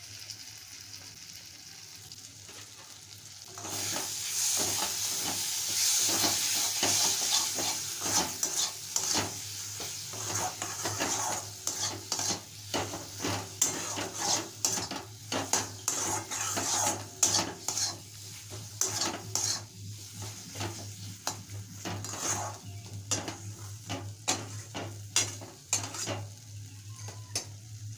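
Onion, tomato and ground dried-chilli masala sizzling in hot oil in a pan while it is stirred with a spatula, with many quick scraping clicks of the spatula against the pan. The sizzle comes up loud about three and a half seconds in. This is the koshano stage, the masala being fried down well.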